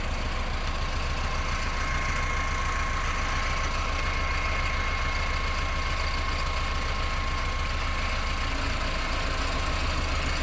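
Mahindra Arjun Novo 605 tractor's diesel engine running steadily, with a thin steady whine over it.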